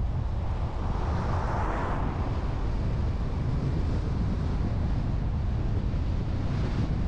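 Wind buffeting the microphone of a moving camera, a heavy uneven low rumble, with a swell of higher rushing noise between about one and two seconds in.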